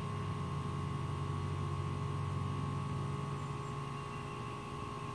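A low steady hum that swells over the first few seconds and then eases off, with a thin steady high tone above it.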